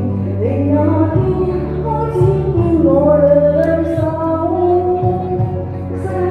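Music from a Cantonese pop song duet: a sustained melody line gliding between notes over a steady bass.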